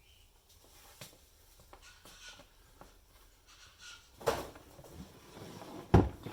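Handling noises as an induction cooker is moved about and turned over on a bench: light clicks and rattles, a sharp knock about four seconds in, and a heavy thump near the end as it is set down.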